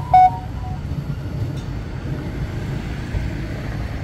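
Steady low outdoor rumble, with a short pitched beep in the first moment.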